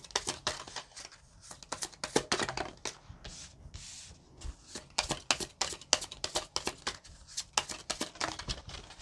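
A deck of cards being shuffled by hand: a fast, uneven run of crisp papery snaps and slaps, easing off briefly a couple of times.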